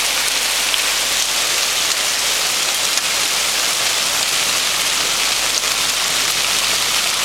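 Hailstorm: hailstones falling steadily, a dense even hiss with faint scattered sharper ticks of individual stones striking.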